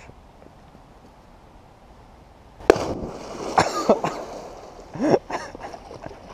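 A person jumping feet-first into a shallow creek: a sudden loud splash about two and a half seconds in, with a hand slapping a rock under the water, followed by churning and splashing water and shouts.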